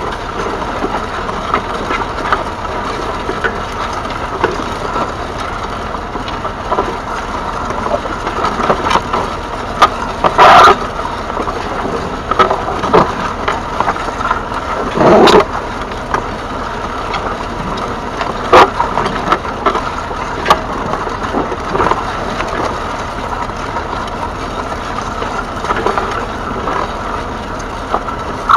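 Massey Ferguson 135's 2.5-litre three-cylinder diesel engine running steadily, with several loud sudden knocks, the loudest about ten and fifteen seconds in.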